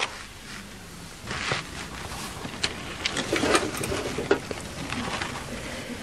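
Quiet small-room sound with a few scattered soft clicks and faint rustling.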